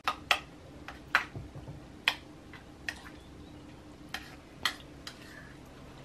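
Spoons and cups clinking against enamelware bowls and mugs while eating: about ten sharp, irregular clinks over a faint steady low hum.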